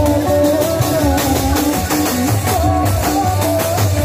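Kecimol street band playing loud amplified music: electric guitars carrying a sliding, wavering melody over electric bass and a steady drum beat.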